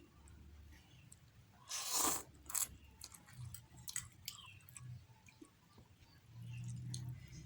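Close-up eating sounds from a mukbang of instant curry noodles with bakso aci: chewing with sharp mouth clicks and crunches. A loud, noisy bite or slurp comes about two seconds in.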